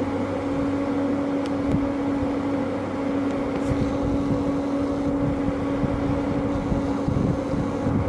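A steady hum holding one constant pitch, with low gusts of wind buffeting the microphone.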